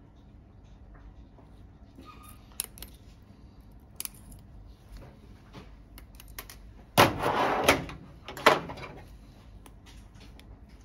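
Handling noise from suturing: a few light clicks of metal forceps and needle holder, then a louder rubbing, scraping noise about seven seconds in that lasts under a second, and a shorter one just after.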